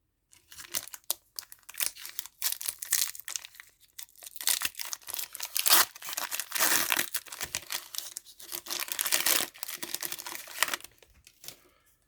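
A My Little Pony trading-card booster pack's wrapper crinkling and tearing as it is opened, in dense irregular crackles that stop about a second before the end.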